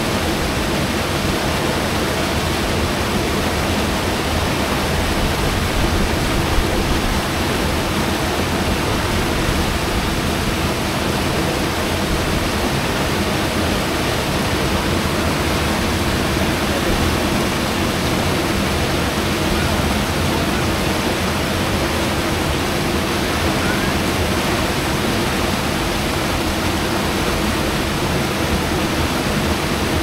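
Rapids of the Verzasca River: white water rushing steadily over and between boulders.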